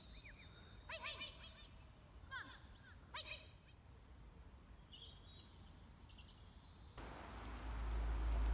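Birds calling outdoors: sharp, short chirps in small clusters, with fainter high calls between. About seven seconds in, a loud, steady rushing noise with a deep rumble takes over.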